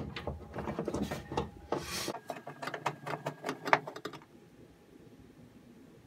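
Busy clicking and rattling of hands handling wiring cables and small parts, which stops about four seconds in and leaves faint room tone.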